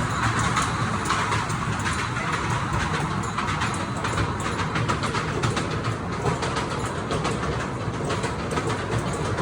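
Small tourist train running, heard while riding on it: a steady rumble with a continuous light clatter.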